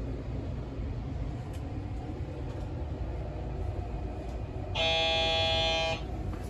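JR Kyushu 821 series electric train running, heard from inside the car as a steady low rumble. Near the end a horn sounds once, a steady tone lasting just over a second and louder than the running noise.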